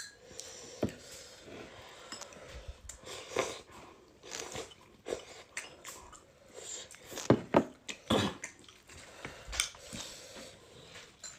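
Close-up eating sounds: a person chewing and biting food, with wet squishing and a scatter of short clicks. The loudest clicks come in a cluster a little past halfway.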